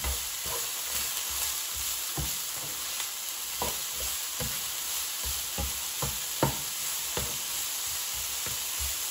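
Broccoli florets sizzling in oil in a hot non-stick frying pan, with a spatula repeatedly knocking and scraping against the pan as they are stirred.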